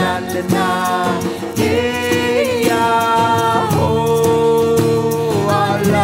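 Devotional chant-style song: singers holding long wordless notes over acoustic guitar.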